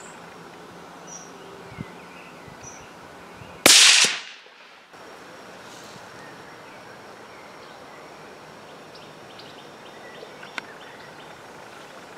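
A single .17 HMR rifle shot: one sharp, very loud crack about four seconds in that dies away within about half a second.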